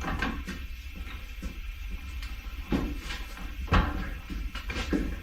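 A few short, sharp knocks and clunks from handling a motorcycle wheel and tire being worked off, the loudest nearly four seconds in, over a steady low hum.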